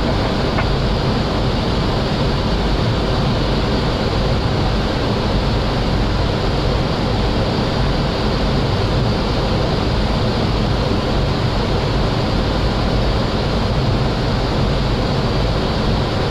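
Steady rushing cockpit noise of a Boeing 737 on final approach: airflow around the flight deck mixed with engine noise, unbroken and even.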